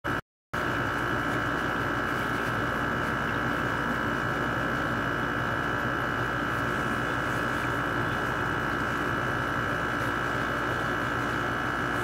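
LG 6,000 BTU air conditioner with its compressor running: a steady hum with a constant high-pitched whine over it.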